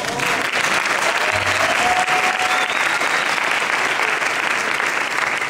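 Audience applauding steadily in a concert hall, a dense continuous clapping.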